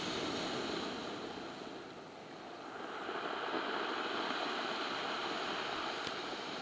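Ocean surf breaking and washing up a pebble and boulder beach, as a steady rush that swells, eases about two seconds in, and swells again with the next wave.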